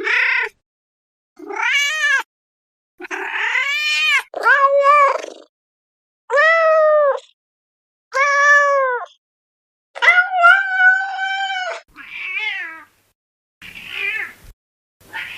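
Domestic cats meowing, about ten separate meows with short silent gaps between them. Each meow rises and falls in pitch and lasts under a second, except one longer, drawn-out meow about two-thirds of the way through.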